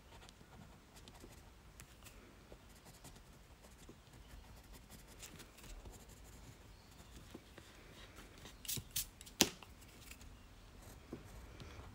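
Faint scratching of a Prismacolor coloured pencil stroking over Canson Mi-Teintes paper as a red background is shaded in small strokes around line-art details, with a few sharper ticks about nine seconds in.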